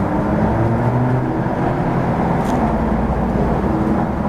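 Steady low rumbling background noise with no clear onsets, like a running motor or vehicle heard from inside.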